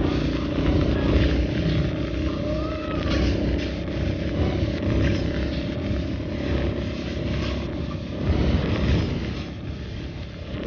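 Car driving on a wet road, heard from inside the cabin: a steady rumble of engine and tyre noise.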